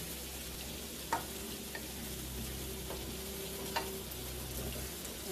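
Mixed vegetables and bean sprouts sizzling in a nonstick frying pan as a spatula stirs them. The spatula taps sharply against the pan a few times, about a second in and again near four seconds.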